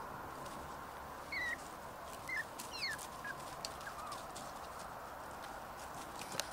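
Shetland sheepdog puppies playing outdoors: a handful of brief high-pitched squeaky yips between about one and four seconds in, over scattered light clicks and a steady background rush.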